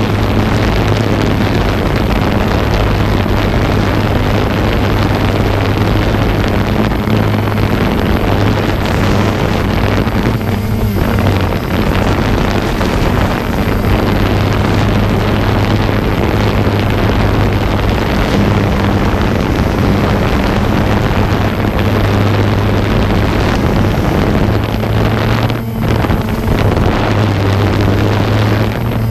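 Multirotor drone's propellers droning steadily with a low, even hum, mixed with heavy wind noise on the microphone.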